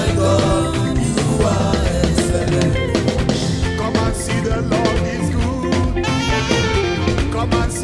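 Upbeat gospel praise-and-worship music from a band, with a drum kit keeping a steady beat.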